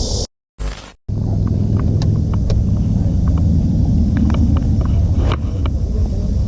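A steady low rumble with scattered light clicks over it. The sound cuts out briefly near the start.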